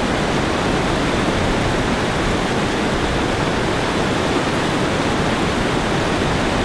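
Water rushing over a low river weir: a loud, steady, even rush of white water.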